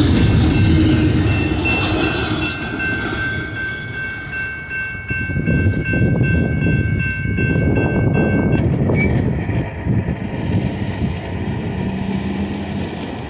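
CSX freight train rolling past, its wheels and cars rumbling and clattering on the rails. A steady multi-note air-horn chord from the lead locomotives holds for about seven seconds and cuts off abruptly about two-thirds of the way in.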